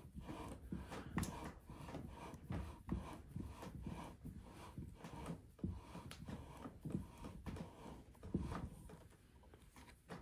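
Scope-ring lapping tool being worked back and forth in tightened ring caps with lapping compound: a run of short rubbing, scraping strokes, about two a second, quieter near the end. The compound is grinding the insides of the rings into alignment.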